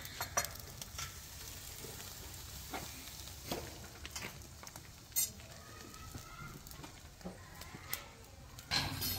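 Chicken kebabs on metal skewers sizzling over a charcoal grill: a faint steady hiss with scattered sharp pops and clicks.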